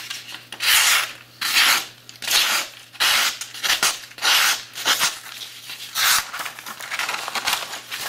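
Freshly sharpened paring knife slicing down through a held sheet of paper to test the edge: about eight short papery hissing cuts, a little under a second apart.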